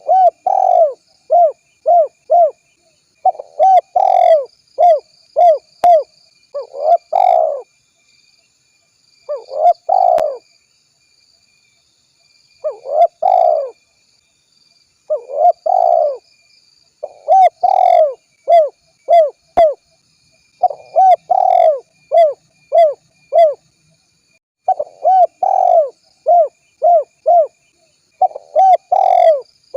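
Spotted dove cooing: phrases of short, rounded coo notes, several in quick succession, repeated over and over with pauses of a second or two between phrases.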